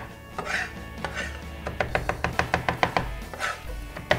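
Chef's knife rapidly mincing fresh parsley on a wooden cutting board: a quick run of knocks, about six a second, after a short pause near the start.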